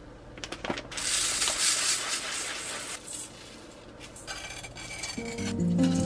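Dry basmati rice poured from a bag into a stainless steel bowl: a dense hiss of grains for about two seconds, then light scraping and clinking as a hand stirs the rice against the bowl. Music starts near the end.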